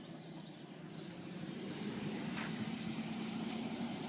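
A vehicle engine running at a distance: a faint, steady hum that grows a little louder after about a second and a half.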